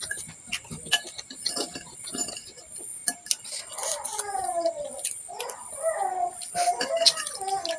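Eating sounds of a meatball-soup mukbang: chewing and spoon or bowl clicks and clinks. From about halfway, several high calls with falling pitch come in, like an animal's.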